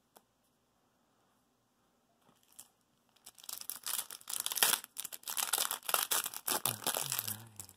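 Foil Magic: The Gathering booster pack being torn open and crinkled in the hands, a dense crackling rustle that starts about three seconds in after a quiet stretch.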